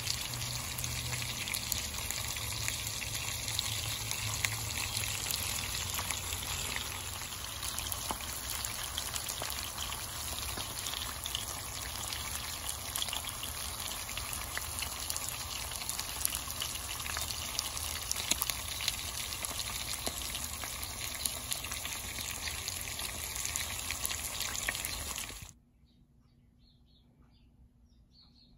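Whole croaker fish frying in hot oil: a steady, dense sizzle and crackle that cuts off suddenly near the end.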